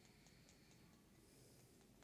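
Faint, light tapping clicks at about four a second, with a soft rustle partway through.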